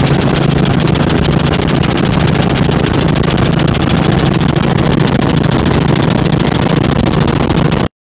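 Small helicopter heard from inside the cabin: engine and rotor running steadily in flight, with a fast, even pulsing. It cuts off suddenly just before the end.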